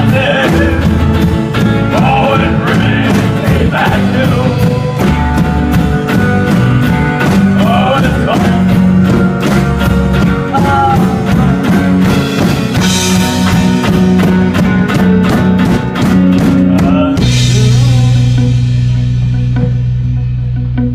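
A live rock band playing: a man singing over electric guitars, bass and drums. About seventeen seconds in, the drums and voice stop and the band holds a last chord that rings out and fades.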